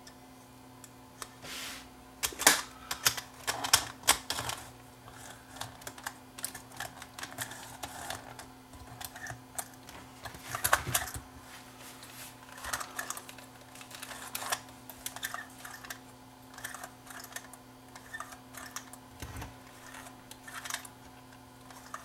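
Irregular clicks, taps and light metallic rattles of a Sony CCD-TRV128 Hi8 camcorder's thin sheet-metal cassette holder being pressed, flexed and bent out by hand to stop the cassette sticking, with a few louder snaps. A faint steady low hum runs underneath.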